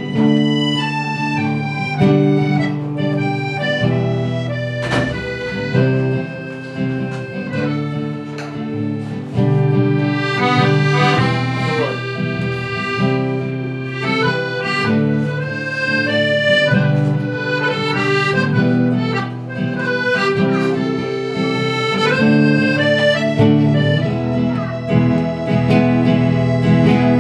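Accordion playing a melody in held, changing notes over plucked acoustic guitar accompaniment: an instrumental passage of a Neapolitan song played by a small folk ensemble.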